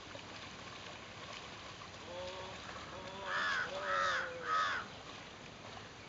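Crow cawing three times in quick succession about halfway through, each caw harsh and arched in pitch. A lower, drawn-out call is heard just before and under the caws, over a faint steady background.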